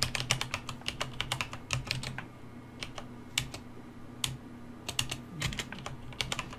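Typing on a computer keyboard: a fast run of keystrokes for about two seconds, then slower, scattered key presses, over a faint steady low hum.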